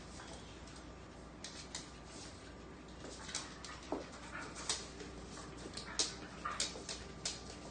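A dog whimpering softly, with scattered short clicks of its claws on a wooden floor as it steps about on its hind legs.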